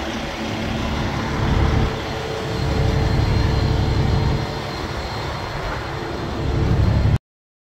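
Semi-truck diesel engine idling up close, with the level swelling and easing a few times. The sound cuts off abruptly about seven seconds in.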